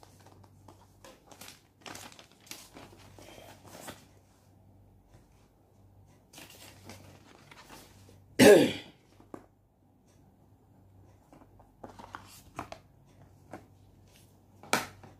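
Apple Watch cardboard and paper packaging being handled: the band sleeve and paper insert rustling and crinkling in short bursts, with one brief louder sound about halfway through.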